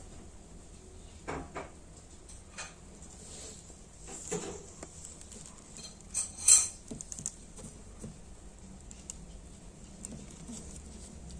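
Handling noise of a small black plastic 60 mm AVC cooling fan being turned and set down on a hard tabletop by hand: a few light clicks and knocks, the loudest about six and a half seconds in.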